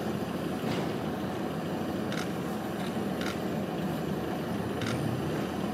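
A steady low rumble of vehicle-like background noise, with a few faint short clicks scattered through it.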